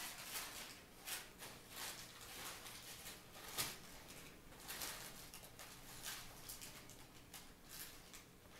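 A cat chewing food off a hardwood floor: faint, irregular crisp crunches and clicks, a few a second, with a louder one about three and a half seconds in.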